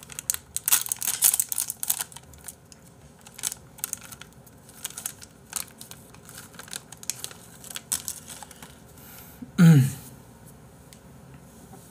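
Crinkly plastic food wrapper being torn open and crumpled by hand, densest in the first two seconds, with scattered crinkles after. Near the end, a man makes a brief vocal sound that falls in pitch, the loudest moment.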